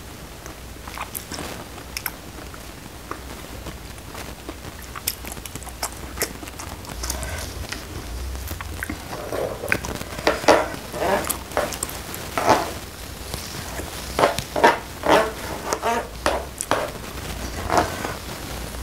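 Close-up eating sounds: chewing, then a metal spoon scooping and scraping rice in sauce on a tray, a run of short clicks and wet sounds that turns busier and louder about halfway through.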